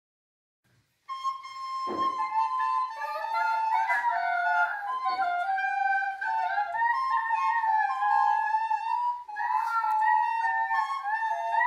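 Two soprano recorders playing a simple melody together, often on two different notes at once, starting about a second in.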